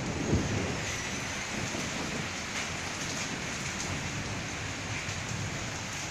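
Heavy rain and hail falling steadily, heard from inside a room, with a brief low thump about half a second in.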